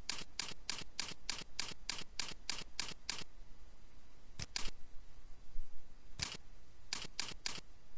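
Computer keyboard keystroke clicks as numbers are typed into a data table: a steady run of about a dozen evenly spaced clicks, roughly three a second, then a few scattered clicks later, three of them in quick succession near the end.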